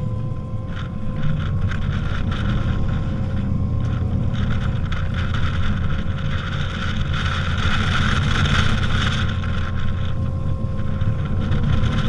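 Strong wind buffeting the microphone, with a gust building and easing again in the middle, over a steady low rumble and a faint steady whine.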